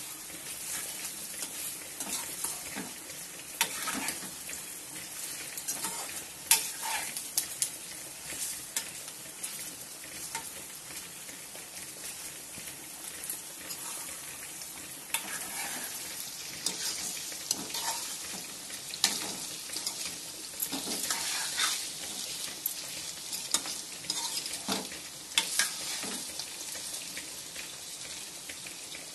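Taro root pieces frying in oil in a kadai, sizzling steadily while a metal spatula stirs and scrapes them, with irregular knocks and scrapes of the spatula against the pan.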